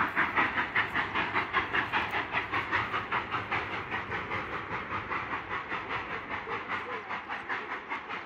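Cumbres and Toltec narrow-gauge steam locomotive's exhaust chuffing in a fast, even rhythm of about five beats a second, slowly fading.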